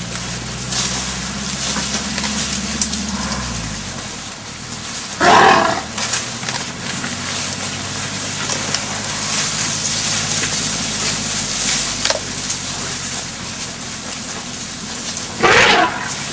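Elephants calling: two short, loud calls, one about five seconds in and one near the end, over the low steady hum of a safari 4x4's engine, which drops in pitch about four seconds in.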